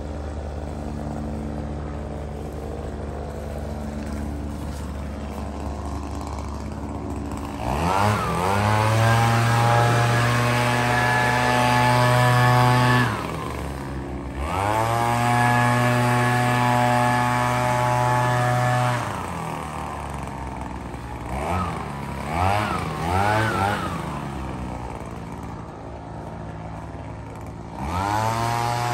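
Handheld gas-engine leaf blower idling, then revved up to full throttle and back down several times: two long full-throttle runs, a few quick blips of the throttle, a short idle, and full throttle again near the end.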